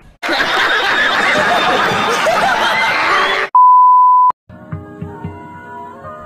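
Loud, busy music cut off about three and a half seconds in by a steady, high test-tone beep of the TV colour-bars kind, lasting under a second and the loudest sound; after it, softer music with held notes begins.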